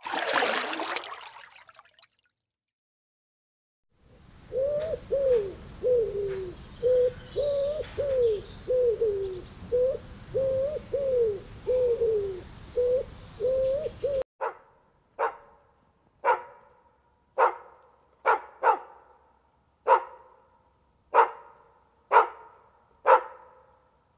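A brief burst of noise, then rock pigeons cooing, a run of repeated coos each falling in pitch, for about ten seconds. Just past halfway, the cooing gives way to a dog barking: about eleven sharp single barks, roughly one a second.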